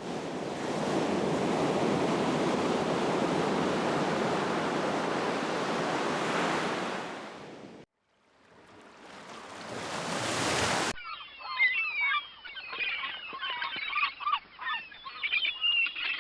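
Ocean waves washing steadily, fading out about halfway through. Then a second wash of surf swells up and cuts off sharply, followed by many birds chattering and calling at once.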